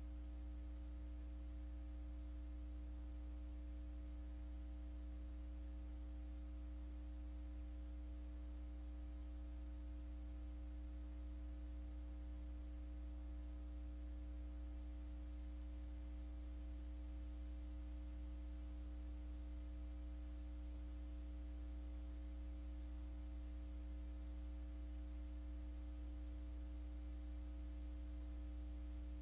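Steady electrical hum made of a low drone with several higher tones, unchanging throughout: mains hum on the meeting-room audio feed.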